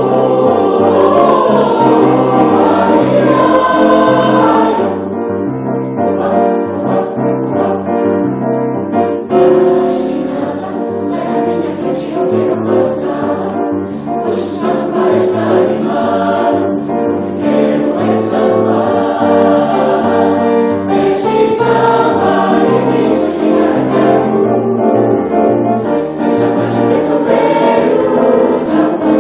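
Music with a choir singing over piano accompaniment.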